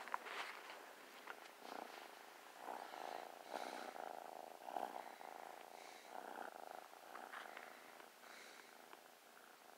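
Tabby kitten purring softly, close to the microphone, the purr swelling and easing about once a second.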